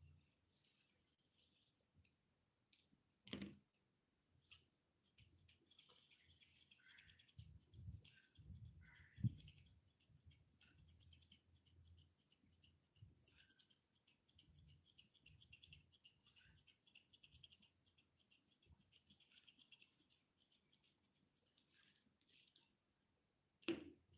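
Grooming scissors snipping through a toy poodle's curly facial fur: a few single snips, then from about five seconds in a fast, steady run of crisp snips that stops shortly before the end.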